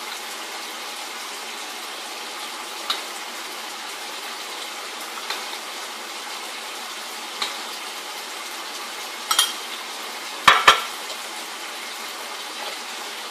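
A spoon knocking against a bowl, a few sharp clinks a couple of seconds apart, the loudest two close together near the end, as flour is spooned from a small bowl into a food processor of bananas. A steady hiss runs underneath.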